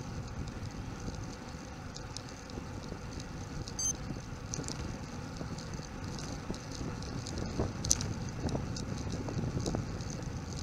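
Wind noise on the microphone and tyre rumble of a bicycle rolling on asphalt, with light scattered rattles and clicks from the bike and camera mount. One click, about eight seconds in, is louder than the rest.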